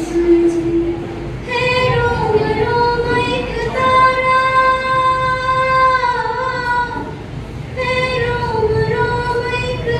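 A teenage girl singing solo and unaccompanied into a stage microphone, in long held notes that slide down at the ends of phrases, with short breaths about a second in and again about seven seconds in.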